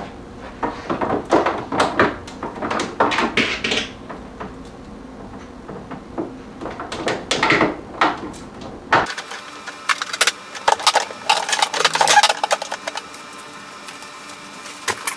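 Household handling noises: a scatter of short knocks, clicks and clatters as objects are moved and set down on a wooden TV stand. A low background hum cuts off abruptly about nine seconds in.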